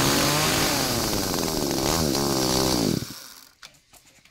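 Makita two-stroke petrol chainsaw running, its revs rising and falling, then the engine cuts out about three seconds in.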